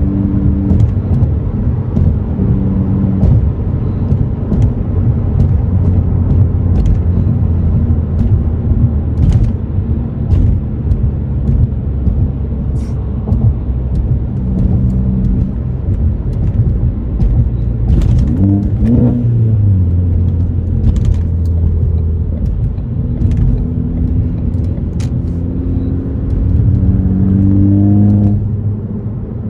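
Ford Focus ST's turbocharged 2.0-litre four-cylinder, through an aftermarket axle-back exhaust, running at a cruise under steady road rumble. Near the end the engine climbs in pitch and gets louder under acceleration for about two seconds, then drops off suddenly.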